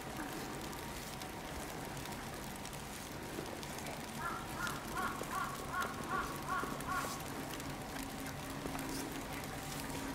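A bird calling: a quick run of about seven short calls, a little over two a second, starting about four seconds in and stopping about three seconds later.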